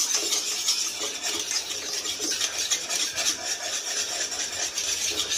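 A utensil stirring and scraping quickly around a pan of thick, drying reduced milk, in fast repeated strokes. The stirring is kept up without a pause so the milk does not catch on the bottom as it dries into kalakand.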